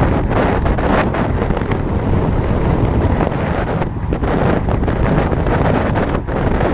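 Wind rushing over a helmet camera's microphone as a mountain bike descends fast on a loose gravel track, with scattered knocks and rattles from the bike going over stones.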